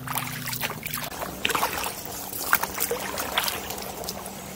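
Massed chatter of a large bird flock, thought to be a few thousand common starlings in a tree: a dense, continuous scatter of short calls and clicks. It is mixed with the splashes of a kayak paddle.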